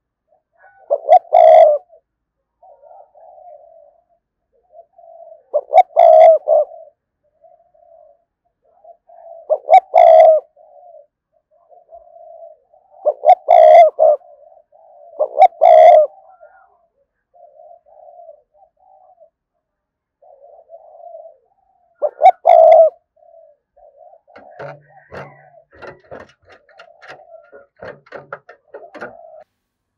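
A decoy spotted dove cooing: loud phrases of coos repeated every few seconds, with softer coos in between. In the last few seconds the calling turns into fainter, irregular sounds.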